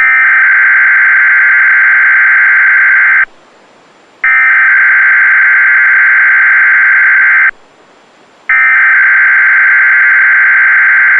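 Weather radio SAME digital alert header: three identical buzzy data bursts of about three seconds each, separated by one-second pauses, sent to trigger alert-equipped receivers at the start of a required monthly test.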